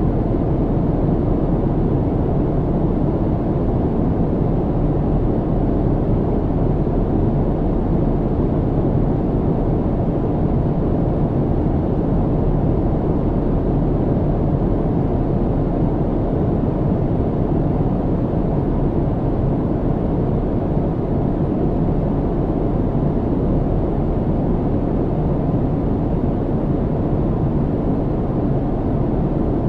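Steady low cabin drone inside an airliner in flight: the deep, even rush of engine and airflow noise, unchanging throughout.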